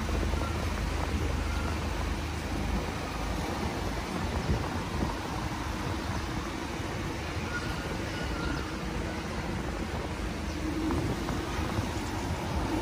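Outdoor street ambience dominated by wind buffeting the microphone, a fluctuating low rumble. Near the end a vehicle engine's sound grows in.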